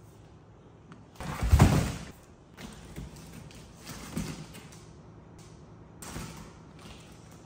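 Cardboard box buckling and scraping as a young monkey climbs into it: a loud thud and rustle of cardboard about a second in, then a few softer bumps and scrapes as she moves around inside.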